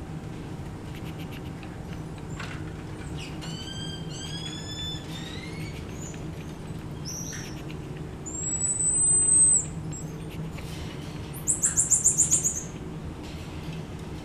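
Black-pencilled marmoset calling in high-pitched whistles. A run of short chirps comes first, then one long high whistle about eight seconds in, which is the loudest sound. Near the end there is a quick trill of about eight notes.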